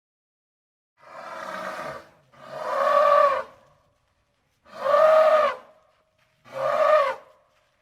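Asian elephant trumpeting: four separate calls, each rising then falling in pitch, the first quieter and the next three louder, with short gaps of silence between.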